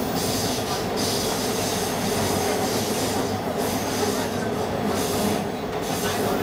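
Toronto subway train running through a tunnel, heard from inside the car: a loud, steady rumble of wheels on rail with a squeal from the wheels.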